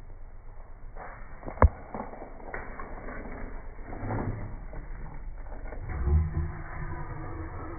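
Mechanical creaking and clatter with one sharp knock about one and a half seconds in, and low thuds near the end.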